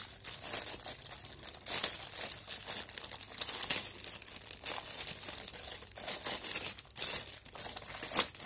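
Thin clear plastic wrap crinkling and rustling in irregular crackles as hands pull and peel it around a small inverter unit.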